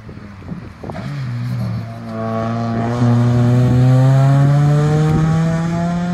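Rally car engine accelerating hard past the spectators and up into a bend, its pitch rising steadily for about five seconds, loudest about three to four seconds in and easing near the end.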